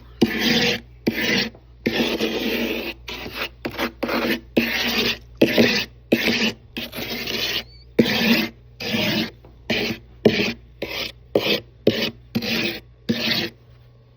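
Freezer frost ice being scraped in a quick run of about twenty separate strokes, some brief and some lasting over a second, with short gaps between them. The scraping stops just before the end.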